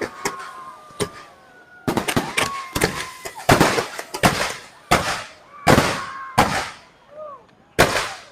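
Fireworks display bursting in a string of sharp bangs, roughly one a second with some in quick clusters, the loudest from about three to six seconds in.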